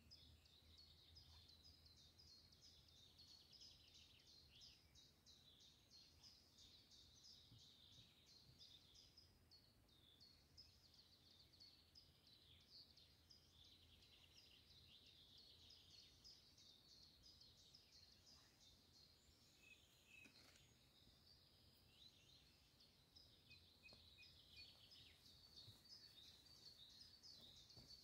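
Faint songbird chorus: many rapid high chirps and trills overlapping without a break, over a low background hum.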